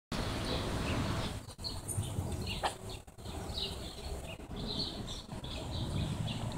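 Small birds chirping over and over, over a steady low rumble on the microphone.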